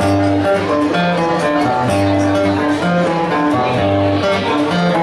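Acoustic guitar played fingerstyle: a low bass note about once a second under higher picked notes, with a steady rhythm.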